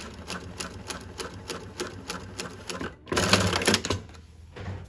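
New-Tech GC-8752-04 twin-needle lockstitch industrial sewing machine stitching denim, its needles and hook clattering in a fast, even run of clicks. About three seconds in it gets louder for roughly a second, then stops. This is a test run after rethreading the machine.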